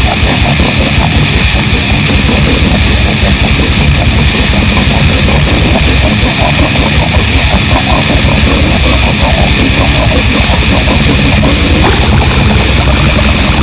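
Loud, distorted heavy-metal-style music, dense and unbroken.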